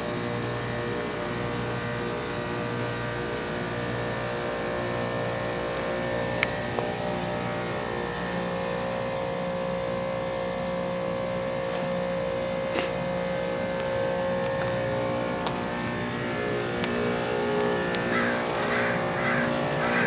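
Carrier WeatherMaker 50TCQD 12.5-ton rooftop heat pump running in its defrost cycle: a steady compressor hum made of several held tones, with a few sharp ticks.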